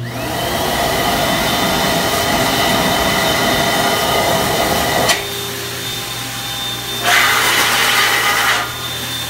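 Electric hand dryer spinning up with a rising whine and blowing hard, air rushing into a washed metal camp pot held under the nozzle to dry it. About five seconds in the rush drops with a click, then comes back louder for about a second and a half near the end as the pot moves through the air stream.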